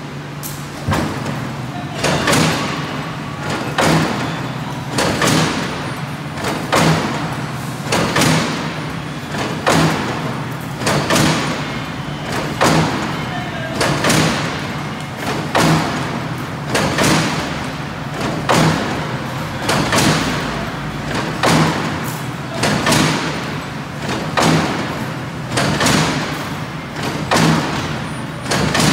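Automatic gabion mesh machine, which weaves hexagonal wire netting, running: a steady hum with a repeating heavy clank roughly every one and a half seconds, the clanking starting about a second in.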